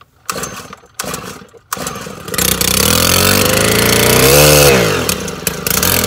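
Stihl FS 100 RX string trimmer's small 4-MIX four-stroke engine being pull-started: two short bursts, then it catches about two seconds in and keeps running. It revs up and drops back about four and a half seconds in, then runs on. This trimmer would not start before its ignition coil was replaced.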